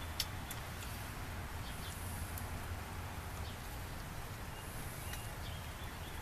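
Outdoor ambience: a steady low rumble with a few faint, short bird chirps, and one sharp click just after the start.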